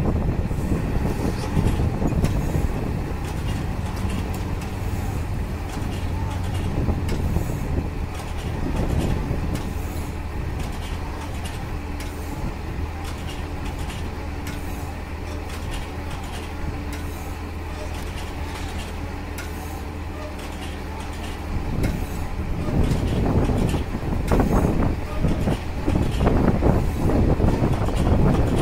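Diesel farm machinery running steadily while a turntable bale wrapper spins a round haylage bale and wraps it in stretch film. Near the end the noise grows louder and rougher.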